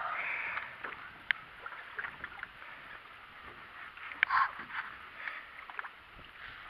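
Faint water and wind noise around a small fishing boat, with scattered light clicks and handling noise from a hand holding the camera.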